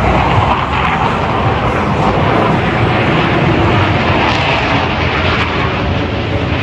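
Jet aircraft roaring overhead, a loud steady rush of engine noise that brightens a little partway through.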